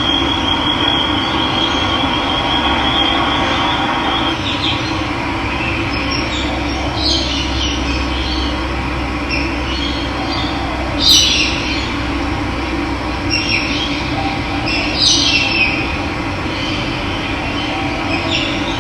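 Steady rushing of running water, with brief bird calls over it several times, the loudest about eleven seconds in, and a high pulsing trill during the first few seconds.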